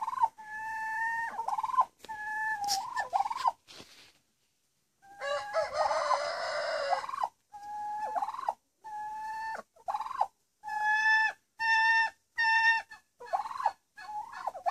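Turkey hens sparring, giving a long run of short calls, each held on one steady high pitch. About five seconds in, a harsher, louder call lasts roughly two seconds.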